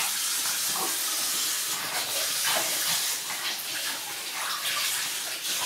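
Tap water running steadily into a sink with a hiss.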